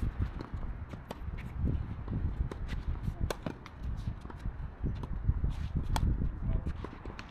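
Tennis rally: a string of sharp racket-on-ball strikes and ball bounces at irregular intervals, as players exchange shots close to the net. A low rumble runs underneath.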